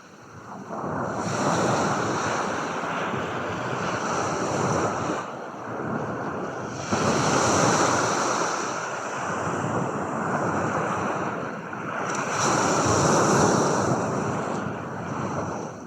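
Ocean surf: waves washing in, a rushing sound that swells and ebbs about every five to six seconds, three surges in all.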